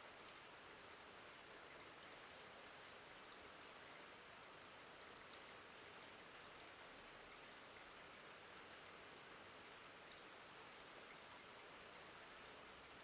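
Faint, steady rain: an even hiss of falling rain with scattered soft drop ticks, unchanging throughout.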